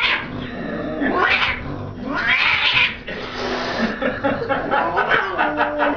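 A cat yowling and hissing in several drawn-out bursts: the defensive noises of a frightened cat facing a plush toy tiger pushed at it.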